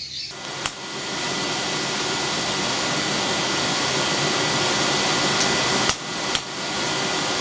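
Steady rush of an electric air blower forcing air into a hole-in-the-ground forge fire, coming on about a second in and making the fire flare. A few sharp metal clinks sound over it, two close together near the end.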